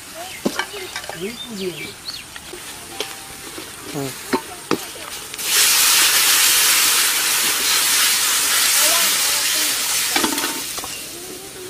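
A metal ladle scrapes and clinks in a metal karahi as spiced fried onions are stirred. About five and a half seconds in, water poured into the hot pan sets off a loud sizzling hiss that lasts about five seconds and then fades.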